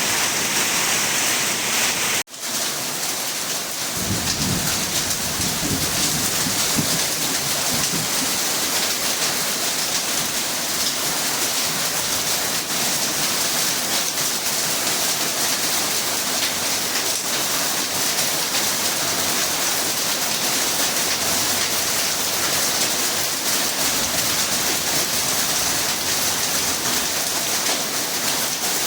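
Heavy rain pouring steadily in a summer thunderstorm, with a low rumble of thunder a few seconds in. The sound cuts out for a moment about two seconds in.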